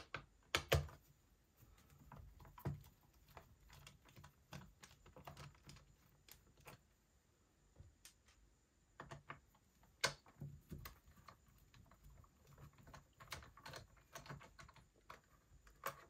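Screwdriver undoing the screws of a Dell Latitude E6440 laptop's plastic bottom cover: faint scattered clicks and taps of the tool and hands on the case, with a sharper knock about half a second in and another about ten seconds in.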